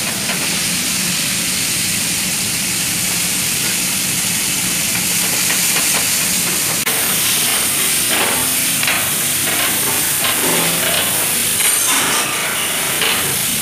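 Beef stir-frying in a pan over a high gas flame with the fire flaring: a loud, steady hiss and sizzle. From about eight seconds in, a metal utensil knocks and scrapes against the pan repeatedly.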